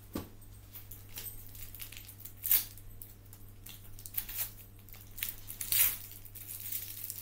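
Crinkling and rustling of packaging handled in the hands, in short irregular bursts with louder crackles about two and a half and six seconds in, over a steady low hum.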